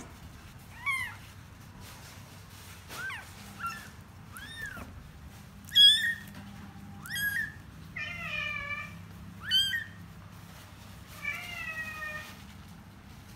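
Domestic cat in labour meowing repeatedly, about nine calls: mostly short, high, rising meows and a couple of longer, lower, falling ones, the loudest about six seconds in.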